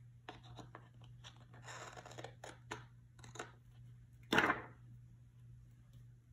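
Small craft scissors snipping a flower sticker where it overhangs the edge of a paper planner page, a run of short snips. About four seconds in comes one louder, brief rustle of paper.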